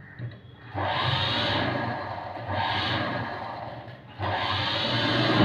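Sewing machine running as the fabric is stitched: it starts about a second in, stops briefly around four seconds, then runs again.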